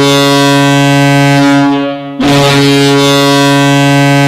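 Ice hockey arena goal horn sounding at a low, steady pitch: a long blast breaks off about two seconds in and a second long blast follows.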